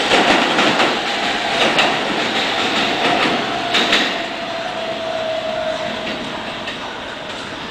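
New York City subway train running out of a station, its wheels clattering over rail joints with a few sharp clicks. The noise slowly fades as the train draws away, with a faint steady whine partway through.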